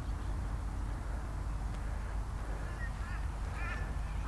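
A bird calling: several short wavering calls starting a little past halfway, over a steady low background rumble.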